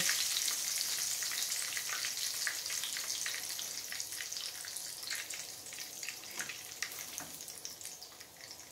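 Hot frying oil in a cast-iron skillet sizzling and crackling just after a breaded pork chop has been lifted out. The sizzle dies down steadily.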